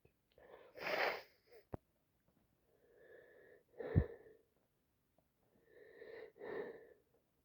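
A woman with a cold sneezing about three times, a drawn-in wheezy breath building before the sneezes. The sharpest, loudest sneeze comes about four seconds in.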